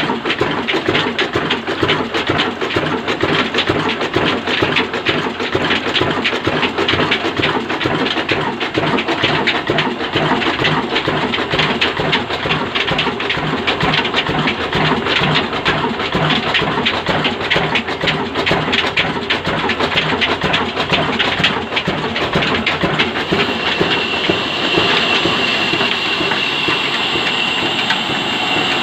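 Old 20 hp stationary engine with a heavy flywheel running steadily under load, a loud rhythmic beat with mechanical clatter. Near the end a steady high whine joins in.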